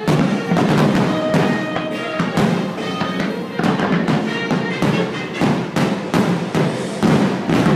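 Music playing, with frequent bangs and crackling from aerial firework shells bursting through it.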